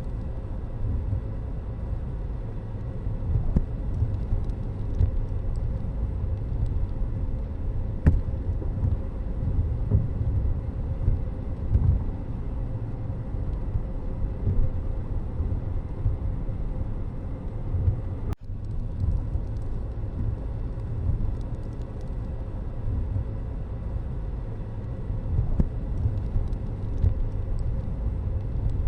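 Steady low rumble of a moving motor vehicle, with a brief dropout about eighteen seconds in.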